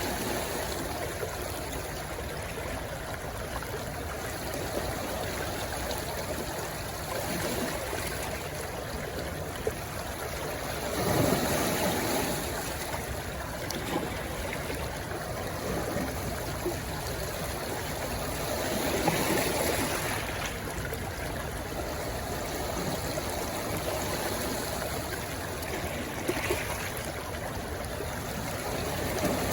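A small stream rushing and gurgling as it runs into the sea, a steady wash of water noise that swells louder now and then, most strongly about eleven seconds in and again near twenty seconds.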